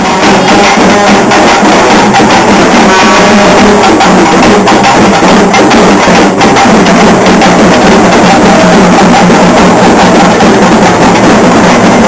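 Loud, fast, continuous drumming on a Tamil street-festival frame drum and a double-headed barrel drum beaten with sticks, with a brief break a little after six seconds.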